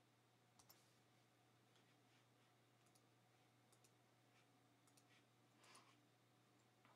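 Near silence: a few faint, scattered clicks of a computer mouse, with a faint steady hum underneath.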